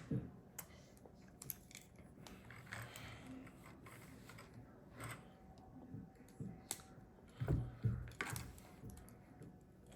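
Plastic Lego bricks being handled and pressed together: faint, scattered small clicks and rattles. A louder thump comes about seven and a half seconds in.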